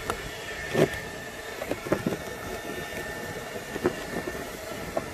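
A handful of sharp clicks and knocks from plastic and rubber intake ducting being pushed back into place by hand under the hood, the loudest about a second in, over a steady background hum.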